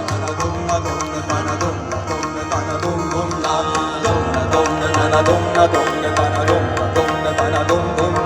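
A live band playing an instrumental passage of an Indian folk song between sung lines: a steady drum rhythm under melodic instruments.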